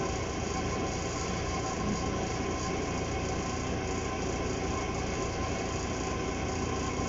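Steady mechanical hum of room background noise with a few faint steady tones, unchanging throughout.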